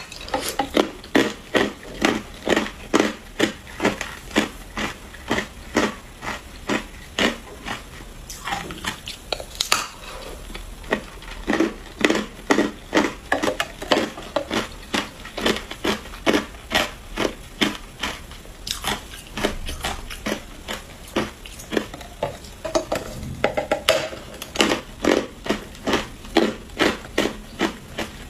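Hard clear ice being bitten and chewed, a steady run of loud crisp crunches at about two to three a second, with a short break near the middle.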